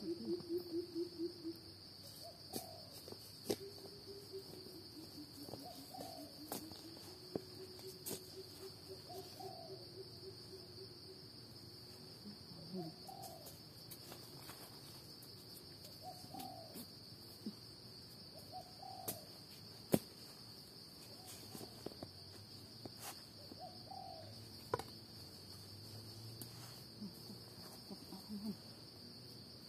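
Steady high insect drone, with a bird giving short low hooting calls about every three seconds. A few sharp knocks and snaps come from digging in the leaf litter.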